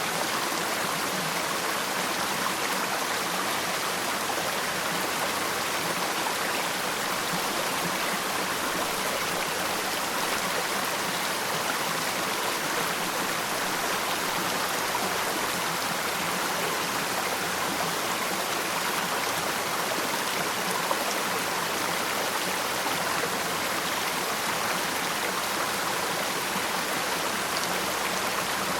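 Falling water from a waterfall, a steady, unbroken rush of splashing water.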